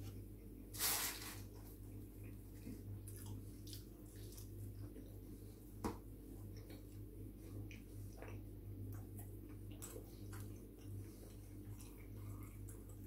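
Close-up eating sounds: chewing and small wet mouth clicks while picking at pizza, with a short hissing rustle about a second in and a sharp click near the middle, over a steady low hum.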